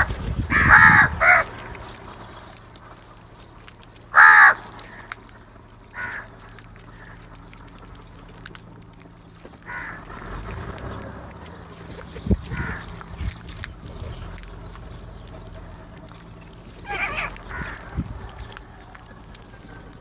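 House crows cawing: a quick run of harsh caws at the start and a loud single caw about four seconds in, then fainter scattered caws, with a few sharp clicks.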